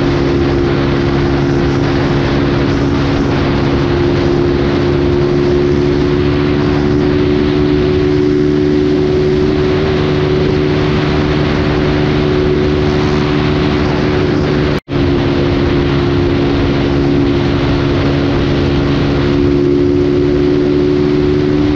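Motorcycle engine holding a steady drone at constant cruising speed under heavy wind noise on the microphone, while riding in a pickup truck's slipstream. The sound drops out for a split second about 15 seconds in.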